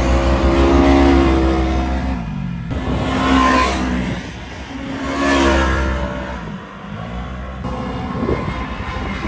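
Polaris RZR side-by-side's engine revving hard as it drives on loose sand, the revs rising and falling in three swells, loudest about a second in.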